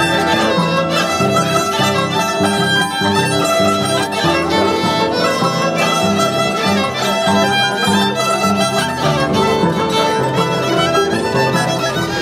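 Andean string trio of violin, Andean harp and mandolin playing a tune together, the violin on top and the harp's plucked bass notes repeating in an even beat.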